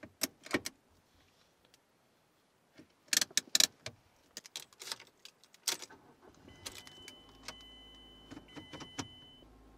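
Car interior controls worked by hand: a quick series of sharp plastic and metal clicks and clunks in three clusters. In the second half comes a steady high electronic tone with a short break, along with small ticks and a low hum.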